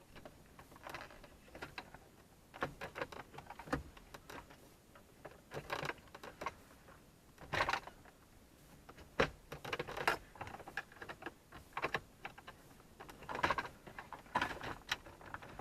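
Irregular clicks, taps and short scrapes of plastic dashboard trim being handled and pried at as the Supra Mk4's instrument cluster panel is worked loose, with a few brief creaks.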